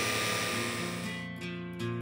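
Levoit LVAC-200 cordless stick vacuum running, a steady rush of air with a motor whine, dying away about a second in. Acoustic guitar background music carries on beneath it and alone afterwards.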